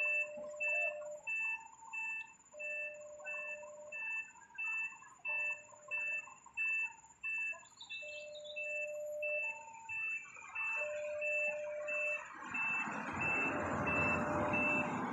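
A truck's reversing alarm beeping steadily, about two and a half high beeps a second, with a lower tone sounding on and off for about a second at a time. About two-thirds of the way through, an approaching motorcycle's engine and tyre noise swells over it and becomes the loudest sound.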